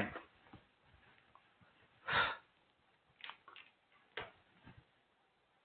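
A lecturer's breath, a short sniff-like intake about two seconds in, followed by a few faint clicks in a small room.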